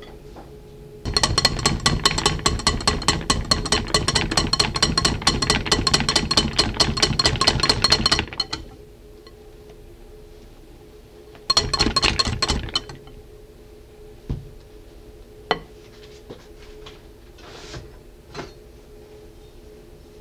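Wire hand whisk beating whipped cream in a glass bowl, the wires clinking rapidly against the glass for about seven seconds, then a second short burst and a few scattered taps. The cream is being whisked by hand to adjust its stiffness.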